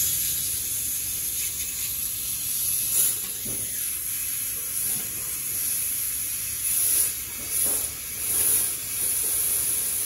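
Aerosol transmission cooler-line flush hissing as it is sprayed through the cooler lines into a drain pan: a steady hiss with a few louder surges.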